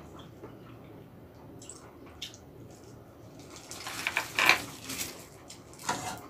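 Eating sounds from a meal of soup tteokbokki: light clicks of chopsticks and spoon on dishes, then louder wet liquid sounds of the broth about four seconds in and again near the end.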